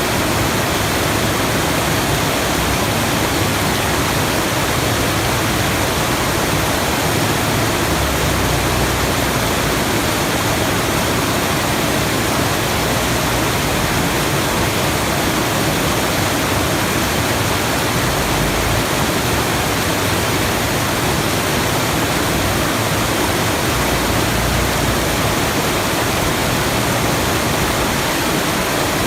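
Steady, unbroken rushing of falling water, like a waterfall, even in level throughout.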